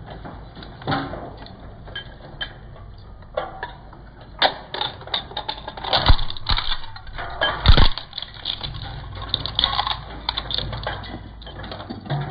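Twin-shaft shredder crunching USB flash drives: a rapid, irregular run of plastic and metal cracks and clicks over the machine's steady low hum. The loudest cracks come about six and nearly eight seconds in.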